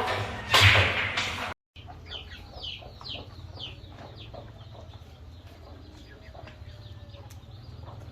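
Chickens clucking, with a run of short falling calls soon after a sudden cut about one and a half seconds in, over a low steady hum. Before the cut, a loud noisy passage from the previous scene.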